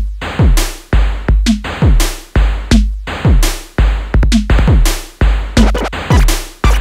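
Electronic background music with a drum-machine beat: a deep kick drum that drops in pitch on each hit, over steady electronic percussion.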